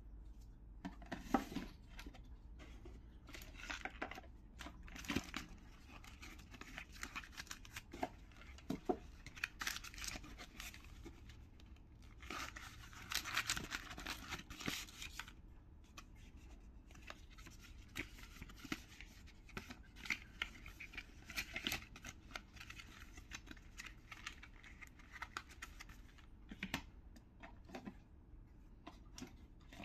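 Hands handling cardboard packaging and a smartwatch: scattered rustles, scrapes and light clicks, with a longer burst of rustling and scraping about halfway through.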